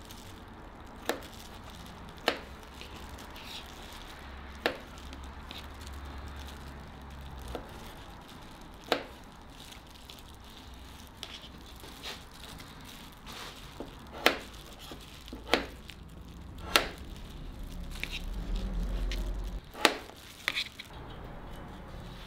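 Knife slicing strawberries on a plastic cutting board: the blade knocks on the board in single sharp taps at irregular gaps of one to a few seconds, with a low rumble for a second or so near the end.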